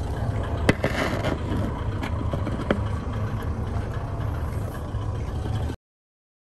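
JNR-era diesel railcar running: a steady low drone of engine and rolling stock, with a couple of sharp clicks. The sound cuts off suddenly about a second before the end.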